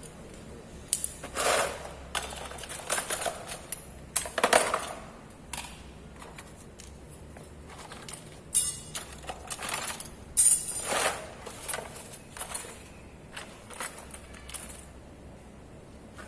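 Irregular clicks, knocks and rustles of parts and wiring being handled while a horn relay is fitted on a motor scooter. A short rapid rattle comes about eight and a half seconds in. The horn itself does not sound.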